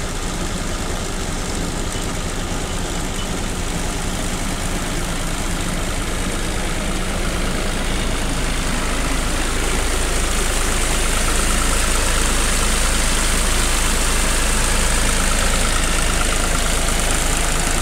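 Tractor engine running steadily to drive a pump that drains a flooded rice field, with water gushing out of the end of a PVC discharge pipe onto a tarp. The sound grows a little louder toward the end.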